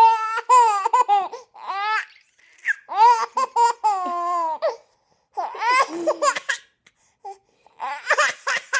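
A baby laughing in high-pitched bouts, about four of them, with short pauses between.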